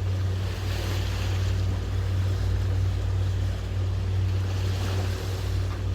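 A sailing catamaran's engine running steadily under way, a low drone, with water washing past the hulls and wind on the microphone.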